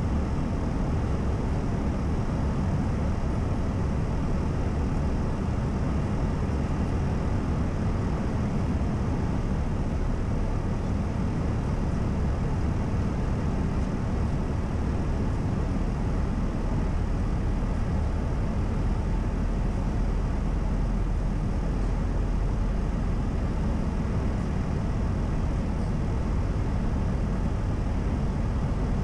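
Steady in-flight noise of an Airbus A320: an even rush of airflow and engine rumble, heaviest in the low end.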